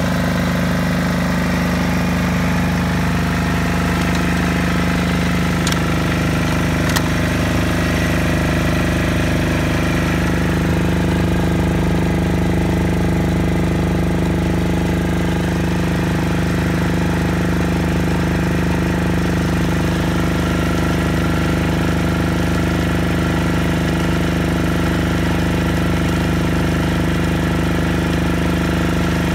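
Single-cylinder four-stroke KHD (Deutz) F1L 210 D air-cooled diesel of a 6.5 kW generator set running steadily at its governed speed of 3000 rpm, with no change in pitch or level.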